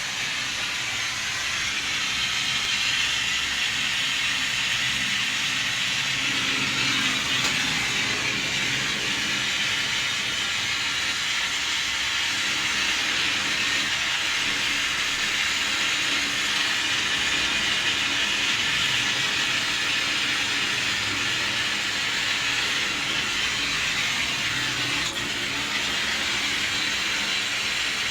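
Gas brazing torch flame hissing steadily while air-conditioner copper pipe is brazed.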